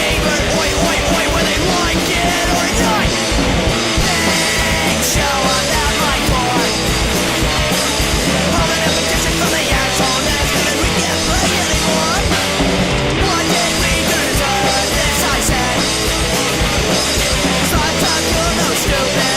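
Punk rock band playing: distorted electric guitar, bass guitar and drums, loud and unbroken.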